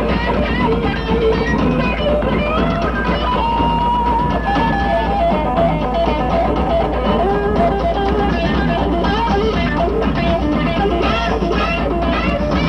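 Rock band playing live, with electric guitars carrying a bending melodic line over bass and drums.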